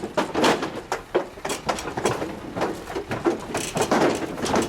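Dairy cows' hooves clattering, a dense run of irregular knocks.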